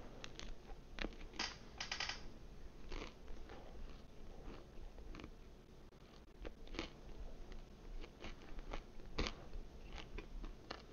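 A person biting and chewing crunchy pizza crust close to the microphone, with many short, irregular crunches.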